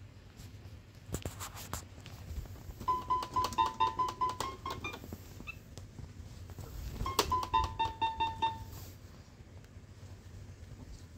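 Toy electronic keyboard sounding short notes as a kitten steps on its keys. There are two quick runs of notes at nearly the same pitch, a few seconds apart, with a few soft knocks about a second in before the first.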